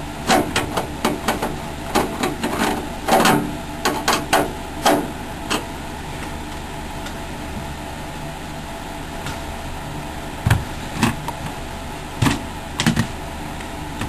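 Screwdriver and screw clicking and scraping against the sheet-metal drive cage of a desktop PC as a hard-drive screw is driven in: a quick run of small metallic clicks over the first few seconds, then a few scattered knocks later.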